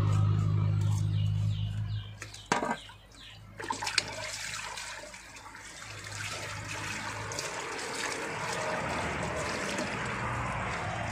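Tap water running and splashing into a plastic basin as a red tilapia is rinsed and rubbed by hand. Before the water starts, a low steady hum dies away at about 2 s, and there are two sharp knocks at about 2.5 and 4 seconds.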